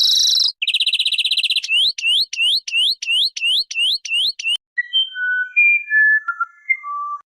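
A string of bird calls: a fast, even high trill, then a series of rising chirps about three a second, then separate clear whistled notes that step up and down in pitch near the end.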